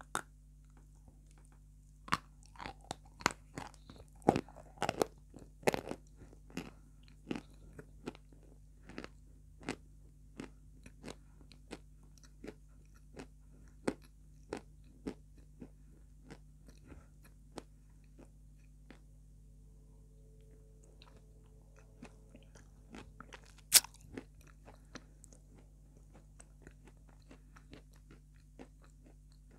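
Close-up crunching and chewing of a dry, dusty white chalk block: a bite, then a quick run of crisp crunches over the first few seconds that thin out into slower, sparser crunches as it is chewed, with one sharp, loud crack a little after twenty seconds in.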